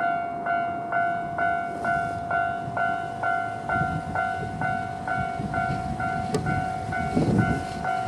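Japanese level-crossing warning bell ringing its normal electronic ding, about two strikes a second. Under it a train rumbles over the crossing, loudest near the end, with one sharp click of a wheel on the rail.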